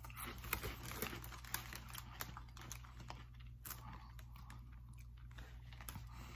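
A person chewing crunchy ridge-cut salt and malt vinegar potato chips: a run of faint, crisp crunches that thin out after the first few seconds.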